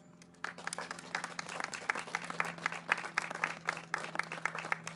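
A small group of people applauding, many hands clapping irregularly, beginning about a third of a second in.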